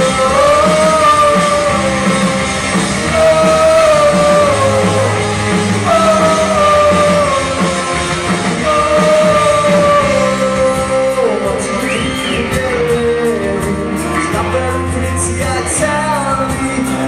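Live rock covers band playing, a singer holding long notes over the band. In the second half the vocal line breaks into shorter phrases and cymbal hits come through more.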